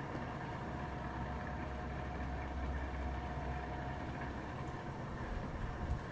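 Many ceiling fans running at once: a steady drone of motor hum and moving air, with a few thin steady hum tones on top and a low rumble.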